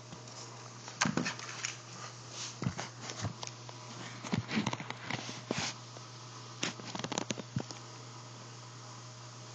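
Meatballs frying in butter in a skillet: a faint steady sizzle with irregular pops and crackles that die away near the end.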